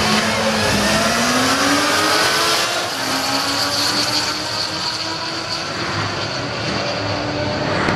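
Drag-racing engines at full throttle, pitch climbing and dropping back at each upshift; the opening seconds are a Yamaha FZS1000 motorcycle and a Chevy SS launching side by side. A steady high whine joins about three seconds in.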